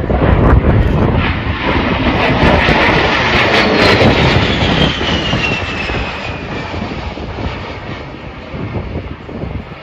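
A-10 Thunderbolt II's twin General Electric TF34 turbofans in a display flyby: a loud jet rush with a high whine that falls steadily in pitch as the jet passes, about three and a half seconds in, then fades away.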